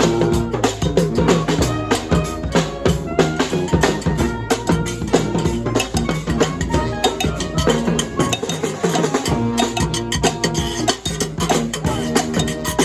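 Brass band playing live: sustained horn notes over a steady drum beat.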